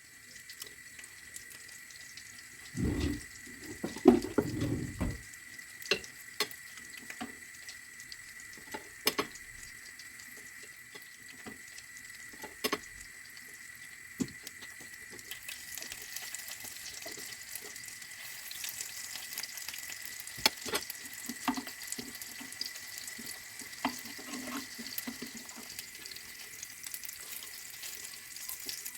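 Tap water running into a sink, with scattered clinks and knocks of things being handled; a few heavier thumps about three to five seconds in.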